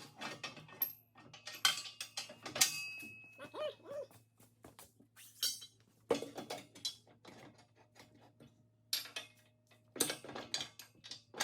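Irregular metallic clinks and knocks, a dozen or so sharp strokes at uneven intervals, over a faint steady low hum.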